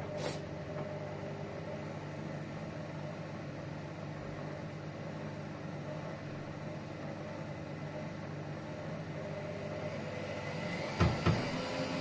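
Hotpoint Ariston washing machine running with a steady motor hum, with two loud knocks near the end.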